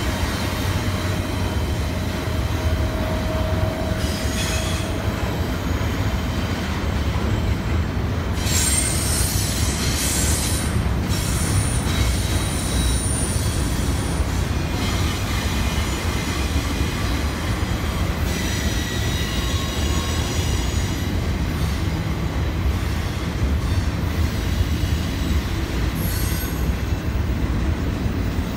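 Double-stack intermodal freight train rolling past on a curve: a steady rumble of wheels on rail, with wheel squeal that comes and goes at several different pitches.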